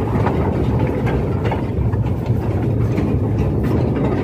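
Underground coal-mine machinery running with a loud, steady low rumble and irregular metallic clattering.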